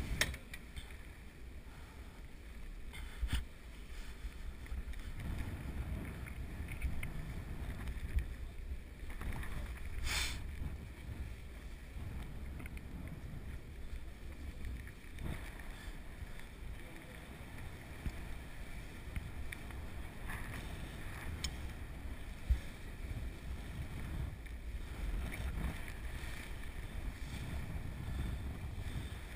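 Wind buffeting the microphone of a climber's action camera in a sailing ship's rigging, heard as a steady low rumble that swells and fades. A few sharp knocks and clicks are scattered through it.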